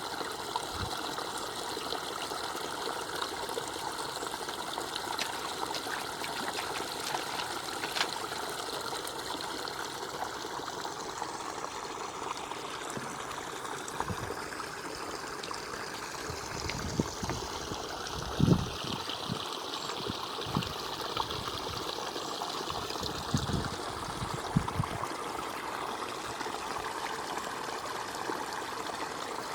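Steady trickling, flowing water, with a few dull low thumps in the second half.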